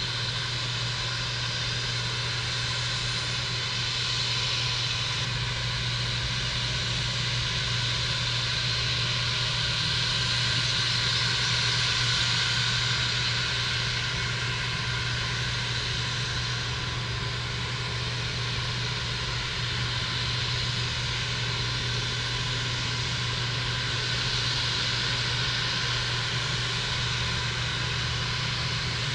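Steady aircraft jet noise from the airfield: an even rushing over a low hum, swelling gently around twelve seconds in and again later.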